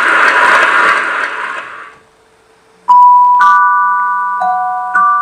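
A loud noisy din fades out over the first two seconds. After a brief silence, a glockenspiel starts a slow melody of single struck notes, each ringing on and slowly dying away.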